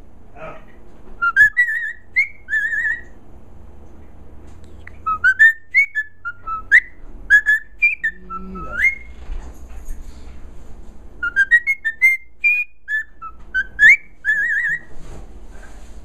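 Cockatiel whistling a song: runs of short whistled notes that glide up and down, in three bunches of phrases with brief pauses between them.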